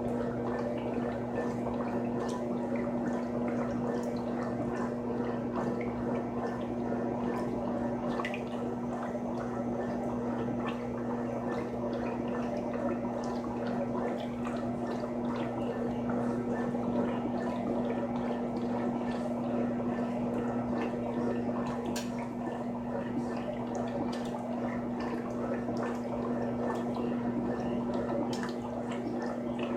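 Frigidaire Gallery Series FWS777GH50 top-loading washing machine running with water in it: a steady electric hum under gurgling and dripping water, with scattered small clicks and ticks.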